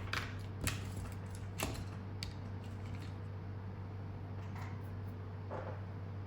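Light clicks and taps from fly-tying tools and materials being handled at the tying bench: three sharp clicks in the first couple of seconds and softer ones near the end, over a steady low hum.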